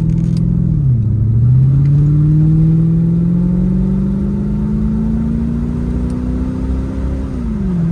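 1989 Chevrolet Corvette C4's V8 engine accelerating: its pitch dips about a second in, then climbs steadily for about six seconds before falling away near the end.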